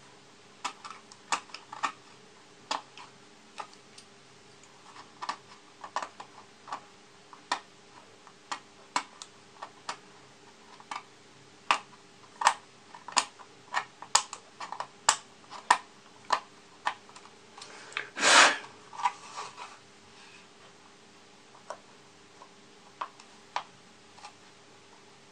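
Irregular sharp clicks and small scrapes of a hand tool prying and scraping at a plastic model kit part, several a second at times, with one louder, longer scrape or crack about three-quarters of the way through. A faint steady hum runs underneath.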